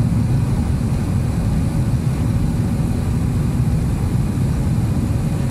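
Jet airliner heard from inside the passenger cabin in the climb after takeoff: a steady, loud, low roar of the engines and airflow through the fuselage.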